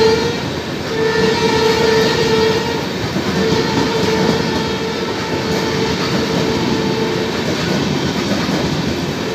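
An express train's passenger coaches running past at speed with a steady rumble and wheel clatter over the rail joints. A steady, horn-like high tone sounds over it in long stretches with short breaks, and fades out about seven seconds in.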